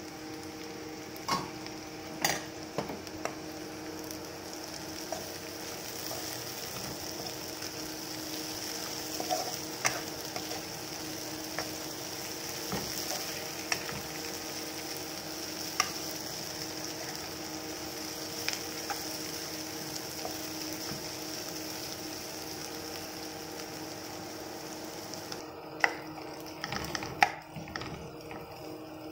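Diced potatoes frying in oil in a nonstick pan with a steady sizzle while a spatula stirs them. A few sharp clicks and scrapes of the spatula against the pan are scattered throughout.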